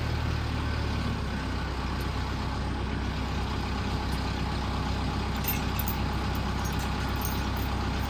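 Diesel tractor engine idling steadily, with a few faint metallic clinks near the end.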